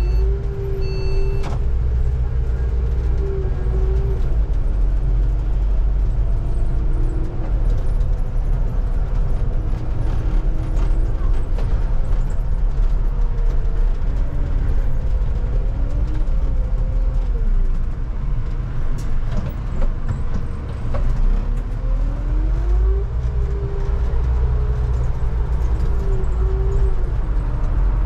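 London bus heard from the driver's cab while driving: a steady low engine rumble with a drivetrain whine that rises and falls in pitch as the bus speeds up and slows, climbing near the start and again about three quarters of the way through.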